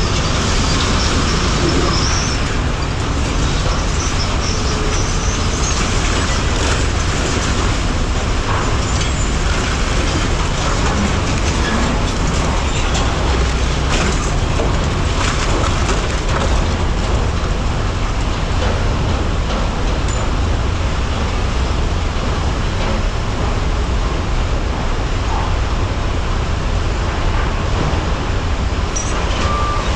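Heavy truck running with loud, steady low engine and road noise. A backup alarm starts beeping near the end.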